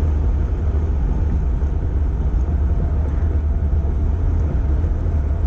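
Datsun 240Z under way, heard from inside the cabin: a steady, loud, low rumble of engine and road noise while cruising.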